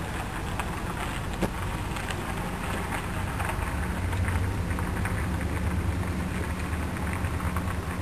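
Engine of an SUV driving along the street below. Its low hum grows louder through the middle and eases off near the end, over a steady hiss with scattered faint crackling ticks.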